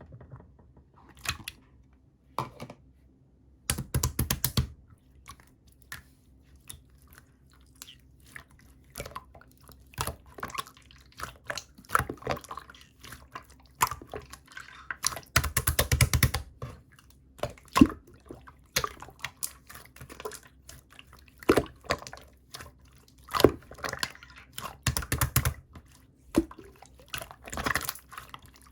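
Black, glossy, chewy slime being pressed and stretched by hand, giving irregular sticky clicks, pops and squelches. Several longer crackling stretches come about 4, 16 and 25 seconds in.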